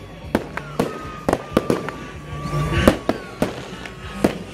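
Aerial fireworks going off in a rapid run of sharp bangs and crackles, about three a second, the loudest nearly three seconds in, with a faint whistle sliding slowly down in pitch underneath.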